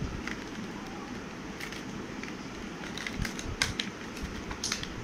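A clear plastic pouch crinkling and rustling in someone's hands, with scattered sharp crackles and clicks that bunch up in a few handling bursts.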